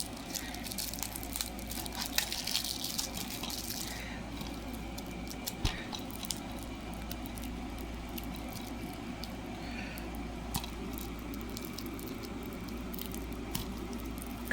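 Plastic shrink-wrap being picked at, torn and peeled off a DVD case: irregular crinkling and small clicks, densest about two to four seconds in, over a steady low hum.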